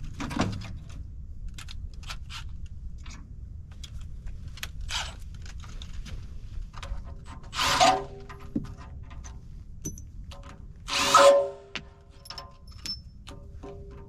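Impact gun running tooth bolts down on a forestry mulcher's cutter disc in two short bursts of about half a second each, with scattered clinks and knocks of tools on metal between them.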